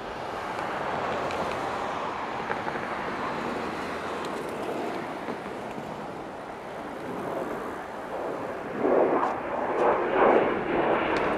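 Jet engine noise from a formation of four F-16 fighter jets flying past: a steady rushing that grows louder and rougher, with fluttering surges, from about nine seconds in.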